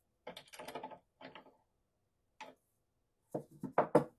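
Bursts of metallic clicking and rattling from an adjustable wrench tightening the locking ring of a bullet seating die in an RCBS reloading press. A louder quick run of sharp clicks comes near the end.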